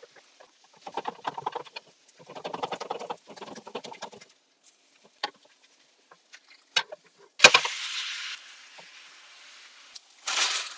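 A slotted wooden spatula scrapes and works under a cheese potato pancake crackling as it fries in a metal frying pan. About seven and a half seconds in, the pancake is flipped and lands in the pan with a sharp slap, then a burst of sizzling that fades. Near the end, another loud sizzle as the spatula presses it flat.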